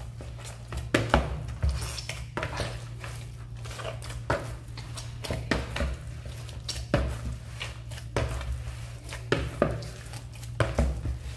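Hands kneading stiff pizza dough in a plastic mixing bowl while oil is worked in: squishing and slapping of the dough, with irregular knocks of the bowl against the stone counter, over a steady low hum.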